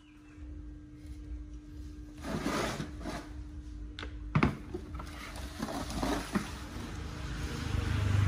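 Handling noise from a Hitachi DH24PC rotary hammer drill being picked up and turned over: its plastic housing and cord scrape and knock, with two sharp knocks about four seconds in. A low rumble builds near the end.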